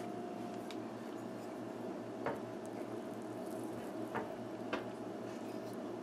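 A stainless fork pressing down through a soft piece of cassava pone, its tines giving about four light clicks against a bamboo cutting board, over a steady faint hum.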